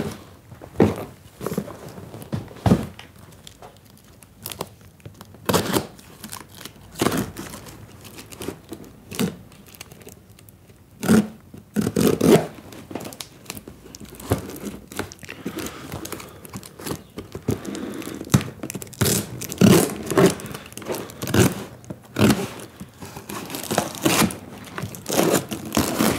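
A cardboard parcel being cut open with a folding knife: the blade slits and tears the packing tape, and the cardboard scrapes and crinkles. Irregular sharp knocks and scrapes come as the box is handled.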